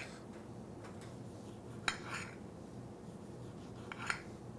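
Knife cutting tomatoes on a ceramic plate: two sharp clicks of the blade striking the plate, about two seconds apart, each followed by a short slicing sound.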